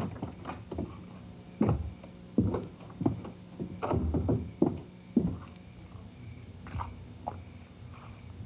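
A run of irregular knocks and thumps, heaviest between about two and five seconds in, then a few lighter taps.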